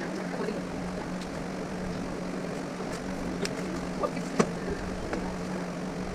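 A steady mechanical hum under the workshop work, with a few sharp clicks; the loudest click comes about four and a half seconds in.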